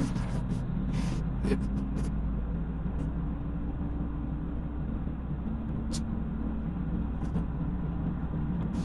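Car engine and road rumble while driving, the engine hum shifting in pitch a couple of times, with a few short clicks.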